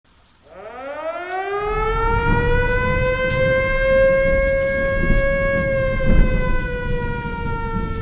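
Outdoor storm warning siren winding up from a low pitch to a steady wail, its pitch beginning to sag slowly in the last couple of seconds, over a low rumbling noise.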